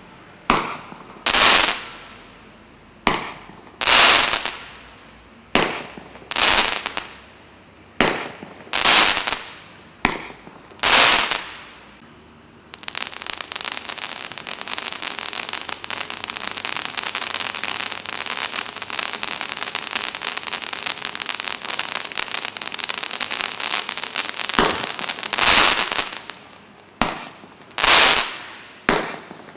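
Consumer firework mines (Standard Fireworks Glory Mines) firing: a string of sharp shots about one a second, each with a short fading rush. About 13 s in, this gives way to a continuous dense crackling spray of sparks lasting about 12 seconds, then the shots about once a second resume near the end.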